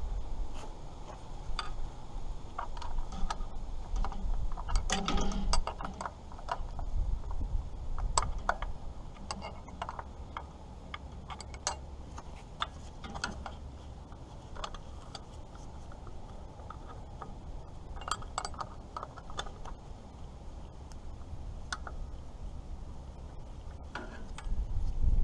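Wrench working the carburetor mounting bolts on a Farmall H tractor: irregular metal clicks and ticks as the bolts are tightened, coming in small bunches with gaps between.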